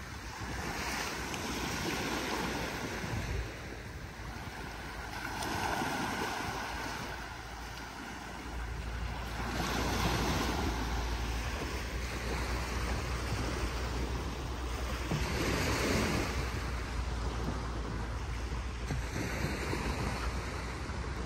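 Small surf waves breaking and washing up onto a sandy beach, the rush swelling and ebbing every few seconds, with wind rumbling on the microphone, steadier from about a third of the way in.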